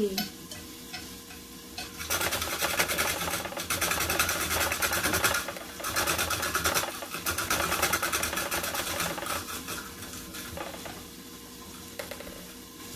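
Celery stalk being sliced in a hand-cranked Saladmaster rotary-cone food processor: the number 5 cone turns against the celery with a fast, crisp scraping crunch. It starts about two seconds in, breaks off briefly midway, and fades after about nine seconds.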